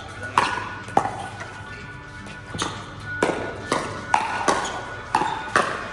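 Pickleball rally: paddles striking the plastic ball in a quick, uneven run of sharp pops, about nine hits.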